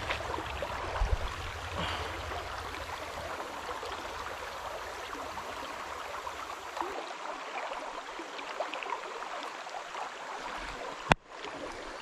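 River current rippling steadily past the bank over a shallow stretch, with a low rumble for the first seven seconds or so and a single sharp click about eleven seconds in.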